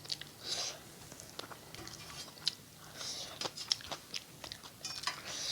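Close-up eating sounds of a person chewing a rice-and-curry meal: wet chewing with sharp clicks and smacks, and short hissing sounds about every two and a half seconds.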